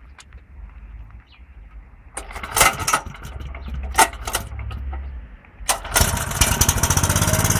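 Petrol jackhammer's small engine being pull-started: a couple of hard tugs on the starter cord, then the engine catches about six seconds in and keeps running with a fast, even beat.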